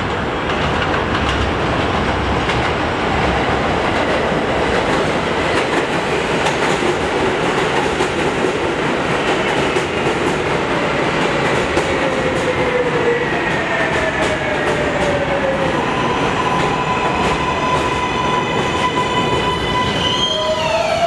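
R143 subway train pulling into the station and braking: a steady rumble of wheels on rail, with an electric whine that falls in pitch as the train slows. The whine settles into a steadier tone near the end as it comes to a stop.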